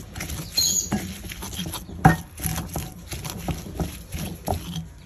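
A pestle pounding and grinding fried chillies, shallots and anchovies in a ridged mortar (ulek) for sambal: irregular knocks and gritty scrapes several times a second, growing fainter near the end.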